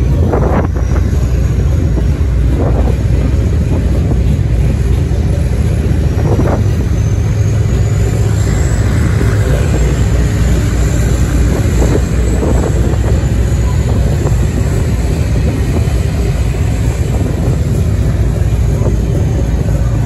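Passenger ferry under way, its engines running with a steady low rumble, and a faint high whine wavering above it for several seconds in the middle.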